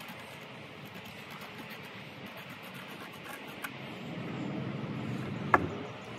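Carpet being trimmed with a knife: scraping and rubbing of the blade and pile, rising as the cut strip is pulled away, with one sharp knock near the end.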